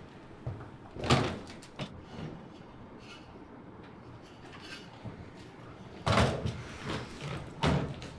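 Hotel elevator doors opening, with a sharp knock about a second in and a lighter one just after, over a low hum. Near the end comes a run of loud knocks and rumbles as a rolling suitcase is pulled along.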